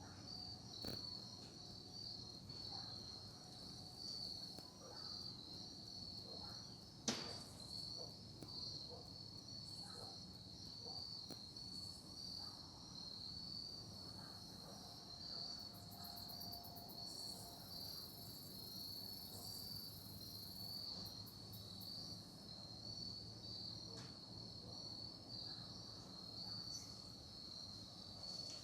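Crickets chirping in a steady, fast-pulsing chorus, with a higher buzzing insect call joining for a few seconds midway. A single sharp click sounds about seven seconds in.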